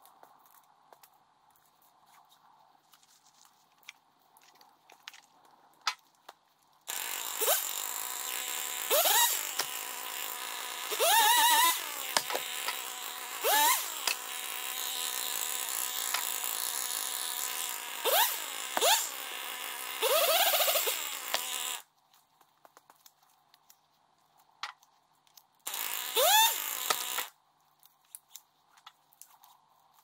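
Husqvarna T540 XP Mark III two-stroke chainsaw running, its engine revved up sharply several times. It starts abruptly about seven seconds in and stops about fifteen seconds later, then runs again briefly with a rev near the end.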